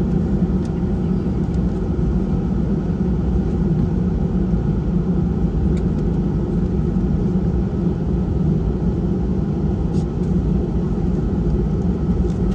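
Steady cabin noise inside an Airbus A320-family airliner taxiing: the jet engines running at low taxi power give a low rumble with a constant hum over it. A few faint ticks come through now and then.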